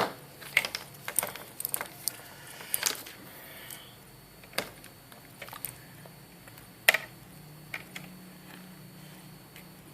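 Scattered light clicks and taps of small tools and earphone parts being handled on a work surface, about a dozen irregular knocks, the sharpest about seven seconds in, over a faint low hum.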